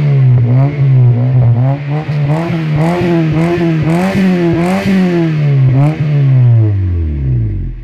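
Honda Civic EK3's four-cylinder engine revved in quick repeated blips through an aftermarket exhaust with a large chrome tip, heard right at the tailpipe. Near the end the revs fall away to a low idle.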